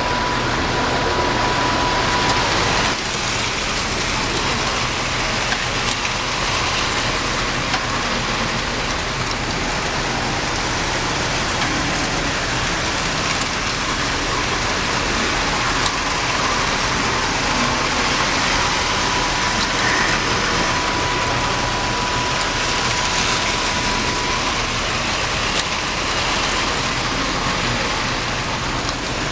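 Lionel postwar O27 toy trains running on three-rail tinplate track: a steady clatter of wheels on rails and motor hum. A thin steady tone sounds twice, briefly at the start and for several seconds past the middle.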